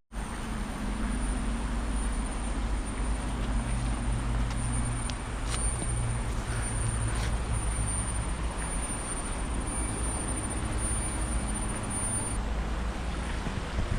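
Steady road traffic from a nearby highway, a constant wash of tyre and engine noise with a low hum running through it.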